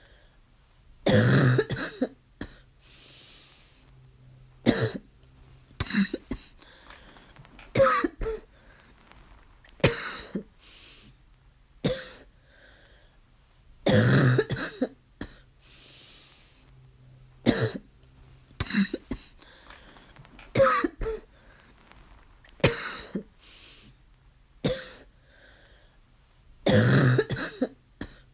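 Fits of harsh, barking coughing, a loud hack every two seconds or so, some single and some in quick runs. The three longest, heaviest fits come about a second in, near the middle and near the end, with faint drawn breaths in the gaps.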